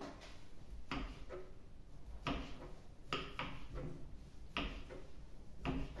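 Kitchen knife slicing boiled chicken breast into strips, the blade knocking down onto the cutting board in irregular strokes about once a second.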